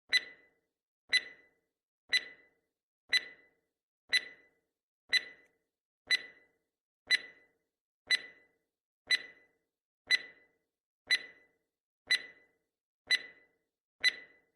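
Launch countdown: fifteen short, sharp electronic beeps, one each second, counting down from T-15.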